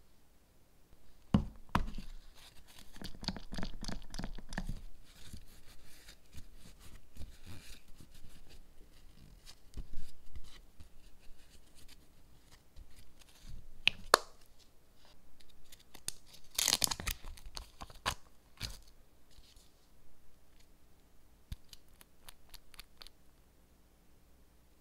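Close-up handling noises from nail-art work: scattered clicks and taps with stretches of scratchy rustling, busiest early on and again about two-thirds through.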